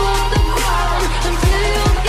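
Electronic background music with no vocals: a deep kick drum every half-second or so over a held bass line and a synth melody.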